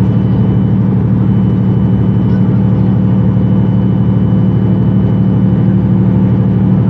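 MAN Lions City A20 EEV city bus's diesel engine idling steadily while the bus stands at a stop.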